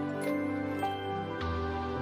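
Instrumental background music: sustained notes over a held bass, with bright chiming strikes ringing above; the bass note changes about two-thirds of the way through.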